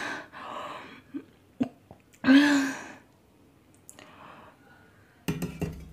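A woman's breathy, pained exhales and a short voiced 'aah' as her tongue burns from very spicy fire noodles. A cluster of clicks and knocks comes near the end.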